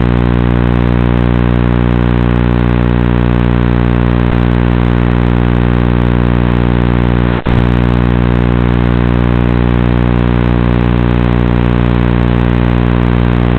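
Steady, even hum with many overtones, heard through an FPV quadcopter's onboard audio while the quad sits still on the ground. It has a brief dropout about halfway through.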